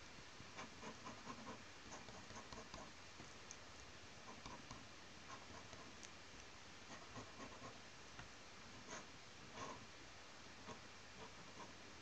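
Faint, irregular scratching and ticking of a pen nib drawing ink lines on paper, in short clusters over a low steady hiss.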